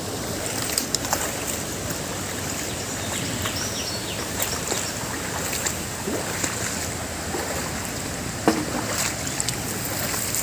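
Steady rushing of flowing monsoon stream water, with scattered sharp clicks and knocks, the loudest about eight and a half seconds in.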